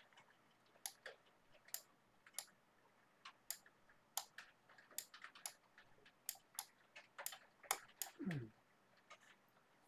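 Computer mouse button clicking repeatedly in an irregular rhythm, about one to two clicks a second. About eight seconds in there is a short low sound that falls in pitch.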